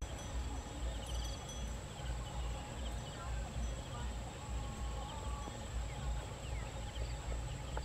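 Rural outdoor ambience: a steady low rumble with faint scattered bird chirps and a thin, steady high tone.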